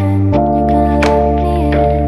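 Background music: sustained keyboard chords over a bass line, with a light steady beat.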